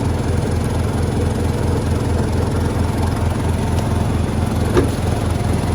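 Small engine running steadily with an even, low, pulsing throb, with one short tick near the end.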